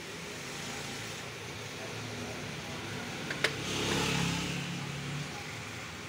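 A motor vehicle passing, its engine swelling up about three and a half seconds in and fading away near the end, over a steady background hum. A single sharp click sounds just before the swell.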